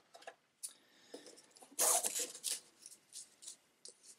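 Handling noise from unpacking board game pieces: short rustles, scrapes and clicks of cards and packaging, the loudest a rustle about two seconds in.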